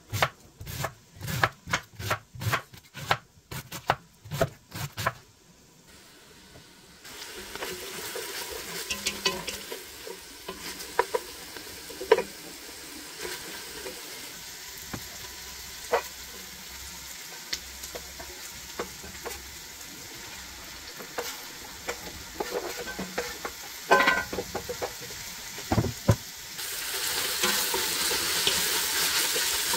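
A chef's knife chopping cabbage on a wooden cutting board, about a dozen quick cuts. Then a steady frying sizzle with occasional knocks, growing louder near the end as shredded cabbage is stirred with a wooden spoon in a steel pot.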